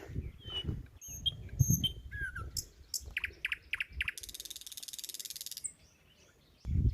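Small birds chirping, with a few short high notes, then a quick run of about four notes, then a dense buzzing trill lasting about a second and a half. A low rustle sits under the first couple of seconds.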